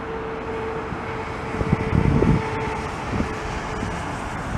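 Jet engines of a twin-engine widebody airliner on its landing roll just after touchdown: a steady roar with a held whine. Wind buffets the microphone about two seconds in.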